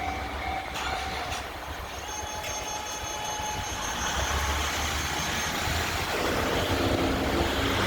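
115 series electric train in Shinano Railway livery running past: a low rumble that grows louder toward the end, with a couple of sharp knocks about a second in and a thin high whine for a few seconds in the middle.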